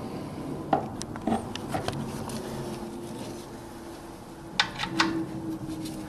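A few sharp metallic clicks and knocks from a wrench working the oil sump drain plug of a Nissan Micra K12. A second group of clicks comes near the end, and a faint steady hum sets in about two seconds in.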